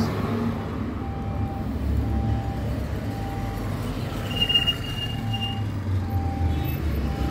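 Street traffic: the low engine rumble of passing motor vehicles, a motor scooter among them, swelling and easing. A brief high tone sounds about four and a half seconds in.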